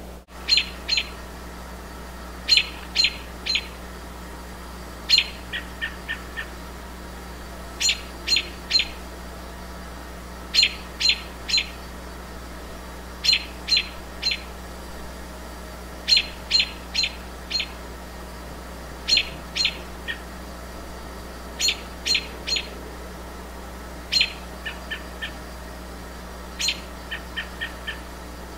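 A bird calling over and over: groups of three or four short, sharp notes every two to three seconds, some groups trailing into a quicker run of softer, lower notes.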